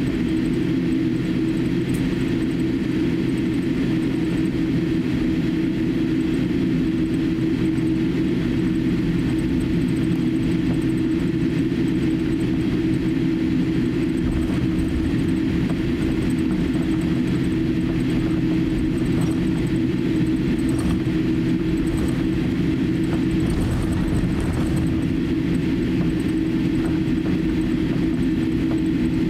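Steady cabin noise inside a Boeing 787-8 airliner taxiing: the engines at taxi power give a low, even drone with a steady hum.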